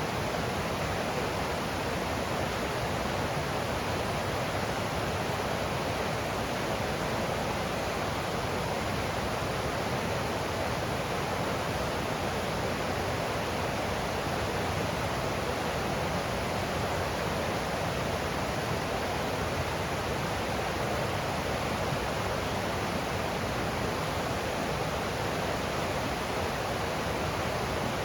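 Forest stream of running water rushing steadily over rocks, an even unbroken wash of noise.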